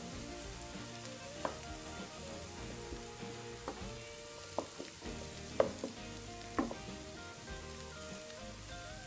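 Chopped vegetables sizzling as they are sautéed in a non-stick frying pan and stirred with a wooden spatula, with about five sharp knocks of the spatula against the pan.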